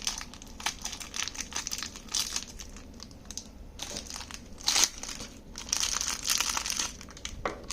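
Plastic packaging crinkling and rustling as it is handled and opened, in irregular bursts with a louder crackle a little before five seconds in.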